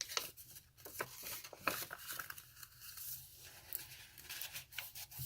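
Paper rustling and crinkling in a series of short, crisp handling sounds as the pages and paper tags of a handmade junk journal are handled and turned.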